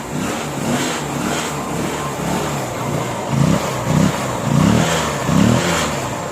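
Honda Shine's 125 cc single-cylinder engine running with a freshly fitted timing chain, its throttle blipped about four times in the second half, each rev rising and falling back. The mechanic judges the engine sound now right after the chain replacement.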